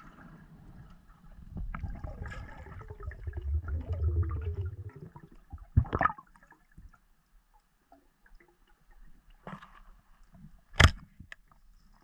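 Muffled underwater sound of pond water, heard through a submerged camera: a low gurgling rumble of water movement for a few seconds, then sharp knocks, the loudest near the end.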